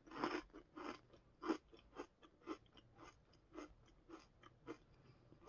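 A person chewing a crispy coconut wafer roll with her mouth closed: faint crunches about two a second, growing softer as the bite breaks down.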